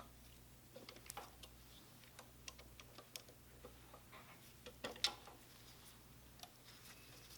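Light, irregular metal clicks and ticks of a number 4 Allen wrench working two cap screws out of a pump's piston bracket, with a louder click a little after five seconds in.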